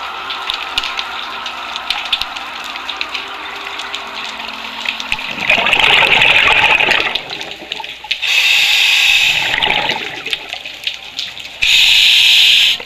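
Scuba regulator breathing picked up underwater: steady hiss with faint crackling clicks, then three loud surges of bubbling and hissing breath about three seconds apart in the second half.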